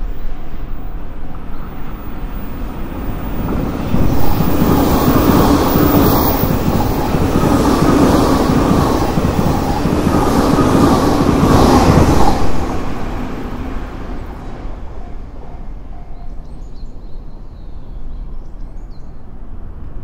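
A limited express electric train passes at speed. It builds suddenly about four seconds in and runs loud until about twelve seconds, with a regular clatter of wheels over rail joints, then fades away.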